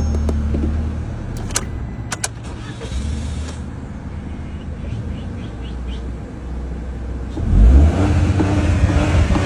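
Car engine starting after a blown fuse has been replaced: a low rumble and two sharp clicks, then a loud thump about seven and a half seconds in as the engine catches and settles into a steady run.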